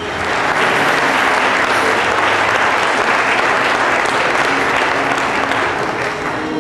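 A crowd applauding: a long round of clapping that starts suddenly and tapers off slightly near the end, with faint music underneath.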